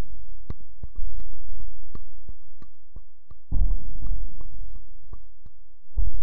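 Deep booming thuds about every two and a half seconds, with a run of short sharp clicks between them: heavy sound-effect hits like giant footsteps.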